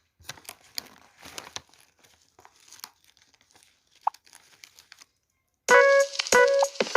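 Scattered crinkling and rustling clicks, then music with clear pitched notes starts loudly about five and a half seconds in.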